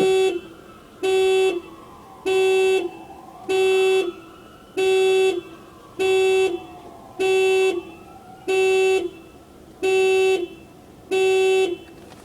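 Car horn honking in an even rhythm: about ten short blasts of half a second each, one every second and a quarter or so.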